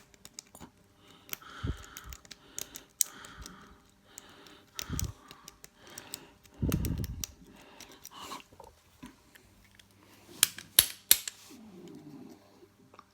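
Lock pick and tension wrench scraping and clicking in a Master padlock's keyway while it is being picked, with a few dull knocks from handling the lock. A quick run of sharp metallic clicks comes near the end.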